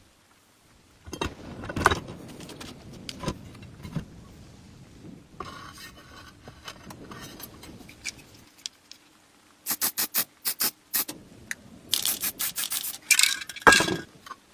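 Hand work on the belt sander's metal parts: irregular scraping and rubbing strokes mixed with sharp clicks and clinks, with a quick run of short strokes about two-thirds of the way in and the loudest scrapes near the end.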